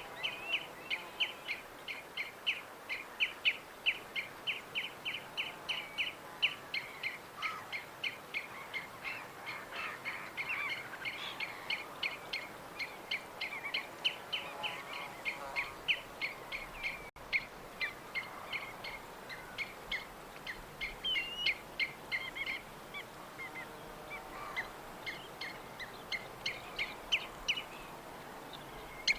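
Songbirds chirping: a quick, steady run of short high chirps, about three a second, with other birds calling more faintly behind over a soft outdoor hiss.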